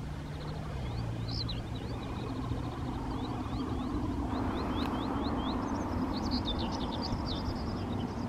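Small songbirds chirping with quick rising notes, over a low rumble of road traffic that swells in the second half as a vehicle passes.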